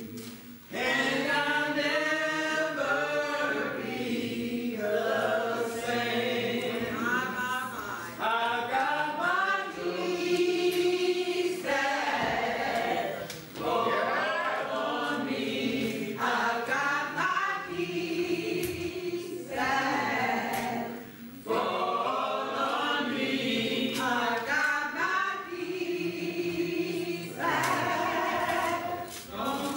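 Church choir singing a hymn together, in long sung phrases with brief breaks between them.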